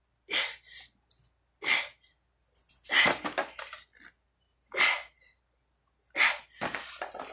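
A man's hard, forceful breaths out as he strains through weight-lifting reps: five short, loud puffs about one every second and a half.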